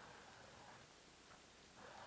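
Near silence, with the faint scraping of a hand ice auger cutting through lake ice, coming in surges: one fades about a second in and the next starts near the end.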